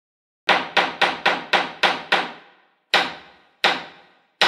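Hammer striking repeatedly, each blow ringing briefly: seven quick blows, then three slower ones.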